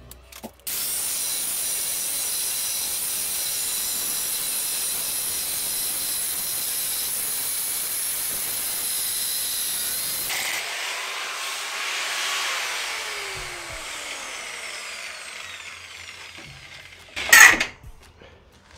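Angle grinder cutting through a bar of very hard steel, running steadily with a high whine. It is released about ten seconds in and winds down over a few seconds. Near the end comes a single sharp knock.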